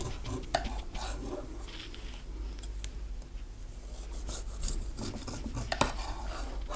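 A large kitchen knife sawing down through a sugar-glazed lemon bundt cake, an irregular rasping scrape, with a couple of sharp clicks about half a second in and near the end.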